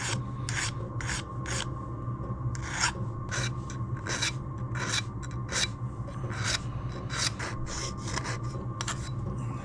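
Small hand file stroking back and forth along the cut edges of an aluminium sheet panel, deburring and smoothing them. The strokes come quickly, about two or three a second, with a short pause about two seconds in, over a steady low hum.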